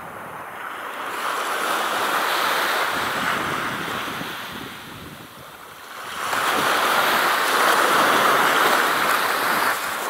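Small waves washing onto the shore in two swells, one building about a second in and a louder one from about six seconds, with some wind on the microphone.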